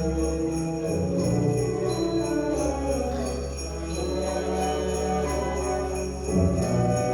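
A school orchestra playing a holiday piece, sustained string-like notes over a steady rhythm of shaken sleigh bells.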